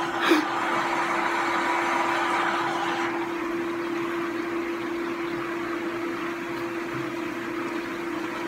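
A steady mechanical hum with one constant low tone under a whirring hiss, like a fan or household appliance running in the room. It is louder for about the first three seconds, then eases off.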